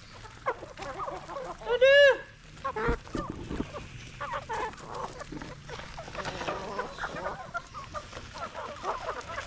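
Flock of native chickens clucking with many short calls, and one loud drawn-out squawk about two seconds in. A short dull thump follows about a second later.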